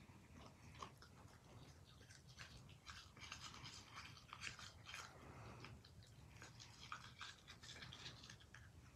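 Faint, irregular scratchy scrubbing of toothbrush bristles against an Australian shepherd puppy's teeth as the puppy chews and mouths the brush.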